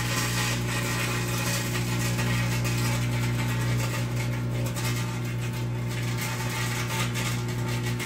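Microwave oven running with a steady electrical hum while thin copper wire inside arcs and burns, a crackling, fizzing noise over the hum.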